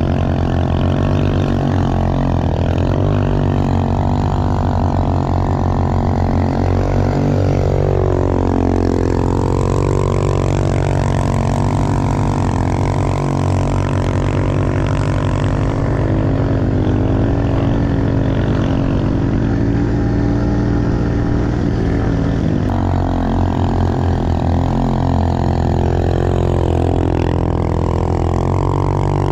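Small single-cylinder pit bike engine running under load while riding in snow, its revs rising and falling with the throttle, with a couple of clear dips and pick-ups.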